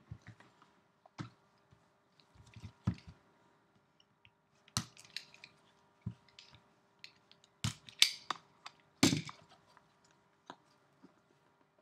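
Cardboard trading-card boxes being handled and opened with gloved hands: scattered taps, knocks and scrapes of cardboard, with a few sharper knocks in the second half.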